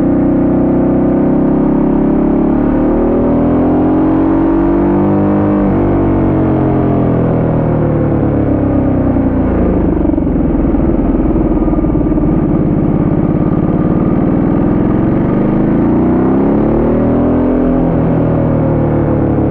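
Ducati Multistrada 1200S V-twin engine under way, its pitch climbing for about six seconds and then dropping sharply. It falls and rises again through the bends, with another sharp drop near the end.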